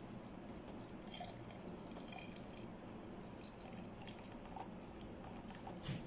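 Faint trickle of coloured water poured from a small stainless-steel cup into the crater of a clay model volcano, with a few soft clicks scattered through it and a sharper one near the end.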